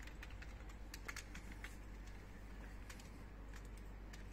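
Faint, irregular clicking of a computer keyboard being typed on, thicker in the first two seconds and again near the end, over a steady low hum.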